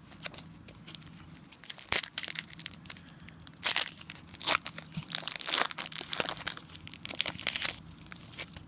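Foil wrapper of a 2011 Totally Certified trading card pack being torn open and crinkled by hand: a run of crackling rustles that starts about two seconds in, is loudest around the middle, and dies down near the end.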